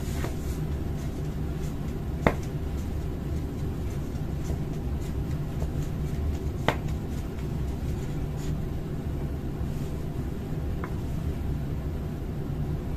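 Plastic laser toner cartridge (49A/53A type) being handled and tipped over to empty waste toner, with two sharp knocks about two and seven seconds in and a few faint ticks, over a steady low hum.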